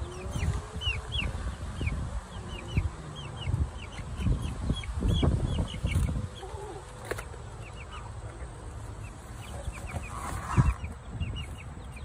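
Three-week-old chicks (pullets) peeping over and over in short, high, falling chirps. Low rustles and a few thumps run underneath, the loudest a little after ten seconds in.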